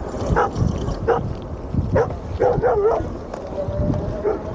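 A quick string of short, pitched yelping calls from an animal, over a low wind rumble on the microphone.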